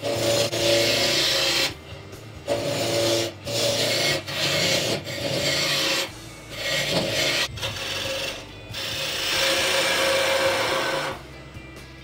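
A turning tool cutting a spinning wooden spindle on a wood lathe: a hissing scrape of steel on wood in about eight passes with short breaks between them, the last and longest stopping a little under a second before the end. The lathe's motor hums underneath.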